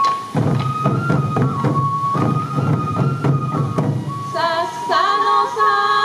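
Sansa odori festival music: large waist-slung taiko drums beat a steady rhythm under a high transverse flute melody. About four seconds in, voices join, singing over the drums and flute.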